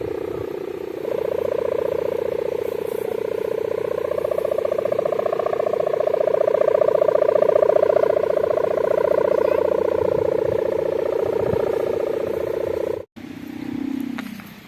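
Sendaren kite hummer droning in the wind, tuned to a bulldozer-like sound: a steady buzzing hum that swells and eases. It breaks off suddenly near the end, followed by a brief lower hum that falls away.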